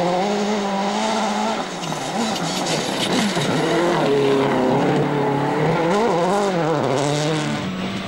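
Citroën C4 WRC rally car's turbocharged four-cylinder engine at full effort on gravel. Its pitch holds high, dips about two seconds in, then climbs and drops repeatedly as the revs rise and fall, over the hiss of tyres on loose gravel.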